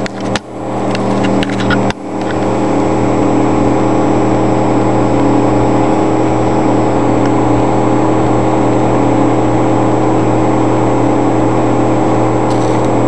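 Microwave oven running, a steady loud hum, with a few sharp clicks in the first two seconds before the hum settles.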